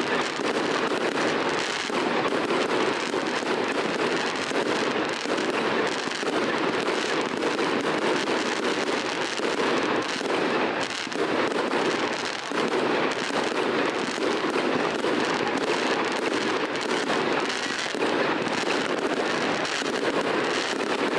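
Fireworks display: aerial shells bursting in a dense, unbroken barrage of rapid overlapping bangs.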